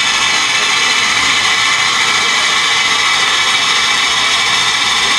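Steady, loud hiss of steam escaping from the CPR 2023 steam locomotive as it sits on the turntable.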